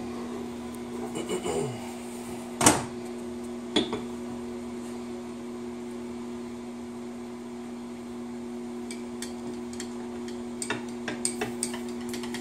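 A steady electrical hum, with light clinks of a metal tool against a glass measuring cup of clear plastisol. There is one sharp clack between two and three seconds in, and a run of small clicks near the end.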